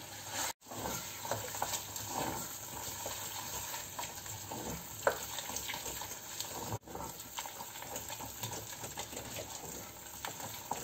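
Wooden spoon stirring and mashing thick cod-and-potato brandada in a stainless steel saucepan, with soft scrapes against the pan. A faint crackling sizzle comes from the mixture cooking over the heat.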